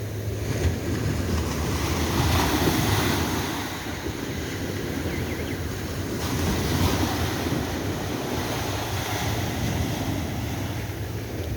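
Ocean surf: waves breaking and washing up the shore in a steady rush that swells louder twice, with wind buffeting the microphone.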